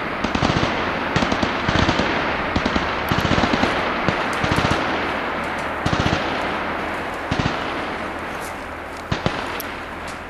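Small-arms fire from several weapons at once: rapid bursts and overlapping shots. After about seven seconds it thins out, ending with two single shots near the end.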